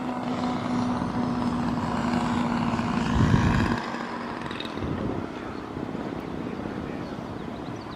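Radio-controlled scale model airplane flying past, its propeller engine a steady drone that fades away about halfway through. A brief low rumble about three seconds in is the loudest moment.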